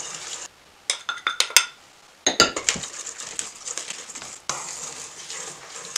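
A metal spoon clinks and scrapes against a stainless steel mixing bowl as cocoa powder is stirred into melted cocoa butter. The sound comes in short runs of sharp clinks broken by two brief silences, with steadier scraping in the second half.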